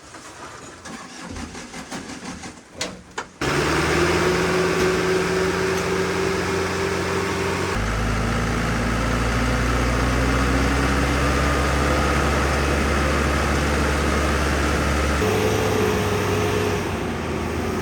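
A truck engine that comes in suddenly about three seconds in, after a few light clicks and knocks, then runs steadily. Its tone shifts abruptly twice and rises slowly in between, as when the truck is driven up through its gears.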